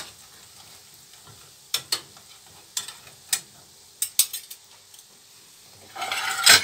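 Tunisian yoyo dough rings deep-frying in hot oil: a steady sizzle broken by scattered sharp pops. A louder clatter comes in near the end.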